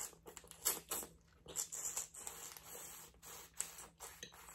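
Saucy boiled crawfish being handled and broken apart by hand: a string of irregular short wet squishes and shell crackles.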